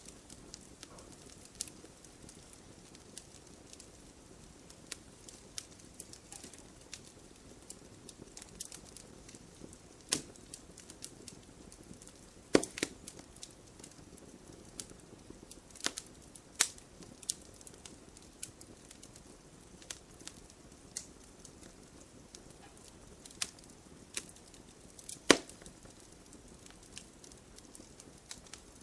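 Wood campfire crackling: irregular sharp pops and snaps over a low hiss, with two louder pops, one just before the middle and one near the end.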